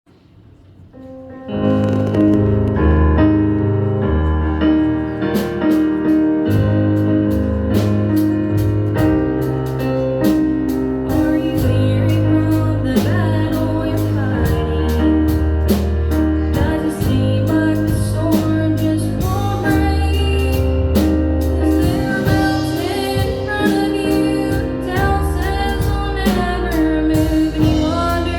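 A song starts about a second and a half in with keyboard chords and bass. Drums come in a few seconds later, and singing joins in the latter part.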